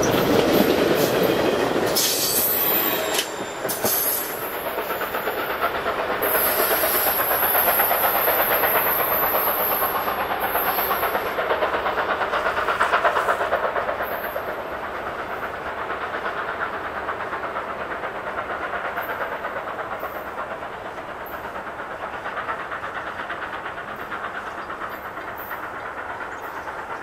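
Passenger-car wheels clicking over rail joints as the tail of the train rolls past. The sound then fades steadily as the train draws away.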